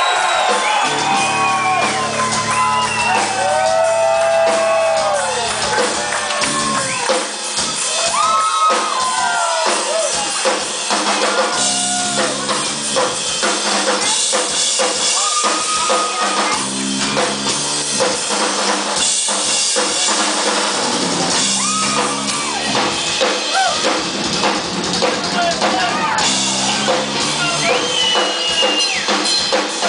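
Live rock band playing: electric guitar lead full of sliding and bending pitch glides over drum kit and bass.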